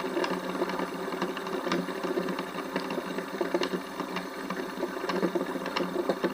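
Metal fidget spinner spinning freely on its bearing: a steady whir with a light rattle of scattered clicks.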